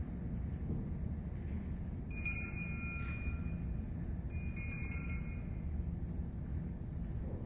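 Two short bursts of shimmering high chimes, a stage sound-effect cue for magic: one about two seconds in, the louder of the two, and another a little before five seconds, over the low hum of the auditorium.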